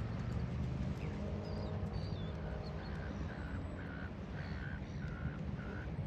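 A gull calling in a series of short, harsh notes, about two a second, starting a couple of seconds in, with a few faint higher chirps before it. Underneath is a steady low rush of wind and surf.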